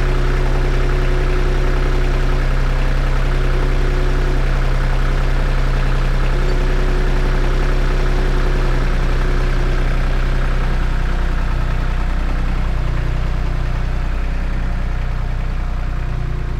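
Compact loader tractor's engine running steadily close by, then easing away and fading a little near the end as the tractor backs off carrying the removed truck step.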